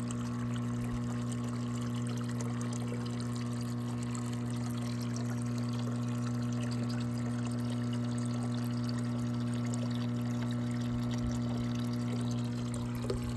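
Water pouring and trickling steadily into a water-filled tub from a hose, over a constant low hum.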